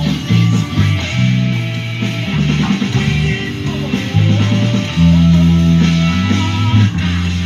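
Electric bass guitar playing: long held low notes, broken by a busier run of quick notes in the middle.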